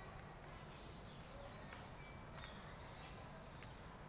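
Quiet outdoor background ambience: a steady low hiss with a few faint clicks.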